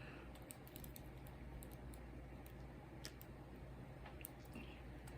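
Faint, irregular small clicks, two or three a second, from a diamond-painting pen pressing resin drills onto a canvas.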